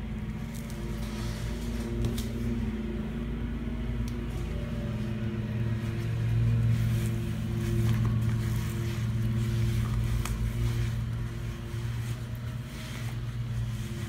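Lawn mower engine running steadily, a low hum that grows louder for a few seconds midway, with faint clicks and squishes of wet sponges being handled in a stainless steel sink coated in cleanser paste.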